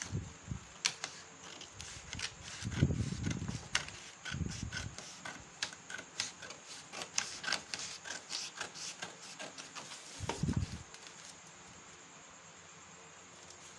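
Scissors snipping through a cardboard pattern sheet in a run of short crisp cuts, with a few dull thuds as the sheet is handled; the snipping thins out near the end.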